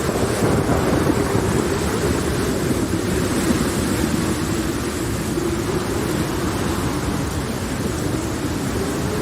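Steady rain and thunderstorm ambience: a continuous hiss of rain over a low rumble, with a low wavering tone running underneath and a slight swell in the first second or two.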